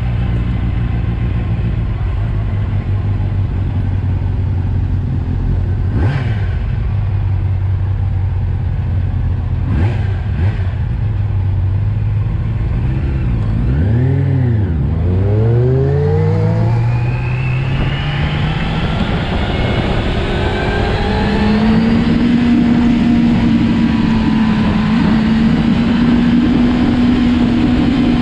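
A 600cc inline-four sport motorcycle engine idling at a stop, then revving up and down briefly about halfway through and accelerating away, its pitch rising before settling into a steady cruise with wind noise.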